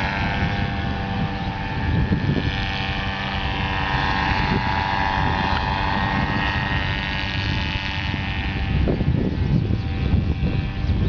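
Strong wind buffeting the microphone in gusts, over a steady motor-like hum that fades in the second half.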